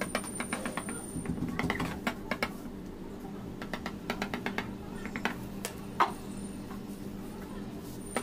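A knife sawing around a plastic container on sponge cake, the blade ticking against the plastic rim in quick runs of light clicks, about eight to ten a second. A single sharp knock comes about six seconds in.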